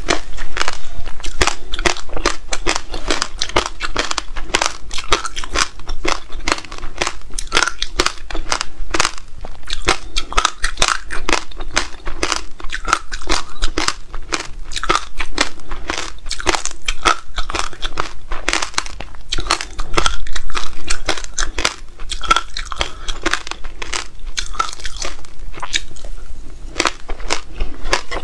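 Close-miked crunching and chewing of frozen passion fruit pulp coated with buckwheat and black seeds: dense, crackly crunches all through, mixed with a metal spoon scraping and scooping the seeds off a wooden board.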